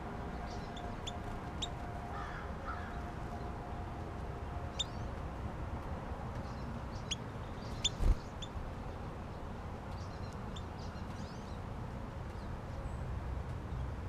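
Small songbirds at a backyard feeder giving short, sharp, high chirps at scattered moments, with a crow cawing a couple of times about two seconds in. A single low knock about eight seconds in, over a steady low rumble.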